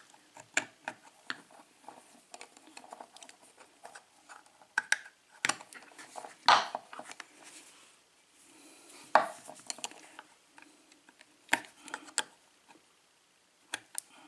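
Small metal clicks, clinks and scrapes of tools prying at the retaining clip on a Schlage KIK lock cylinder, irregular, with a few louder clinks scattered through.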